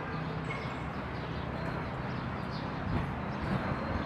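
Outdoor ambience: a steady wash of background noise with a few faint, short high chirps.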